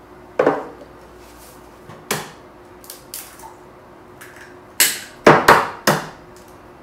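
Eggs being cracked against a flat worktop and glass bowls knocking on it: a string of sharp taps and knocks, the loudest four close together about five seconds in.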